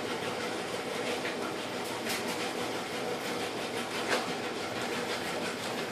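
A domestic cat purring steadily while being petted, a rumble likened to a washing machine.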